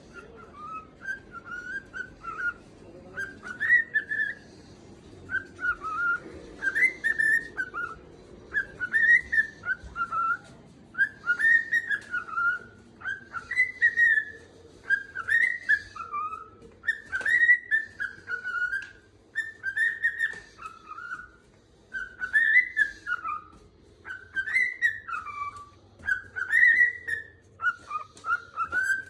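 Cockatiel calling over and over in loud whistled phrases, each short call rising and falling, one every second or two: contact calls to its owner, who is out of sight upstairs.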